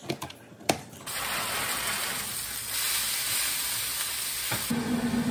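A knife knocks twice against a plastic cutting board while dicing a bell pepper. About a second in, pieces of steak start sizzling steadily in a frying pan. Near the end a low steady hum joins the sizzle.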